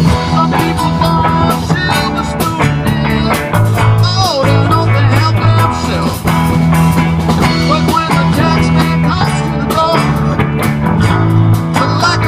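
Rock music with electric guitar, a steady beat and a sustained bass line.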